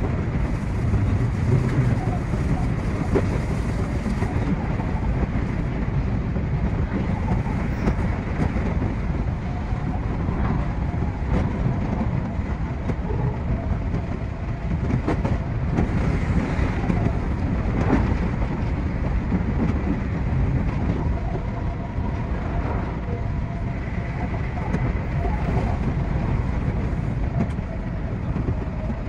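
Odakyu 3000 series electric train running, heard from its cab: a steady rumble of wheels on rail with scattered clicks from the track and a faint steady whine.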